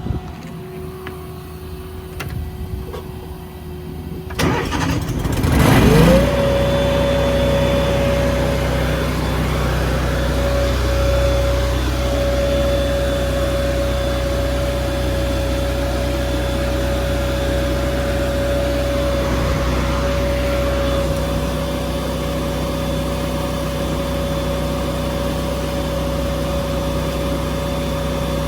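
An engine starts about four seconds in, spins up quickly with a rising pitch, and settles into a steady run with a constant whine over a low rumble.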